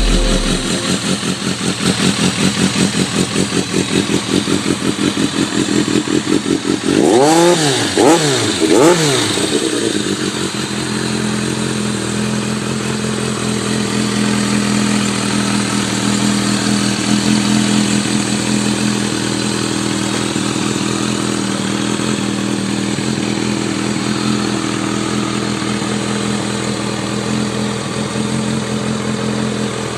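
Vintage Kawasaki motorcycle engine idling with a lumpy, pulsing beat, then revved three times in quick blips about seven to nine seconds in. It then settles into a steadier, smoother idle.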